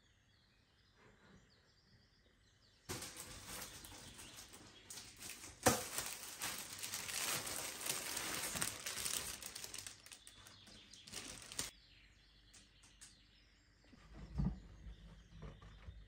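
Clear plastic sheeting being handled and crinkling, starting abruptly a few seconds in and going on for about nine seconds with one sharp crackle early on, then stopping; a soft thump near the end.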